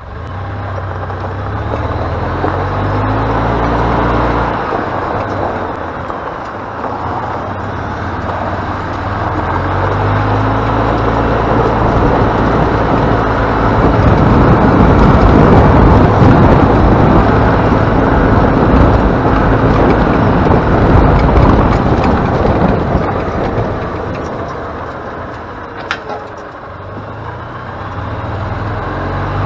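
Gas EZGO golf cart engine running under load as the cart is driven, its pitch rising and falling several times as it speeds up and eases off, with a louder rushing stretch in the middle. The cart is running and pulling normally after repair of flood damage and a new starter generator.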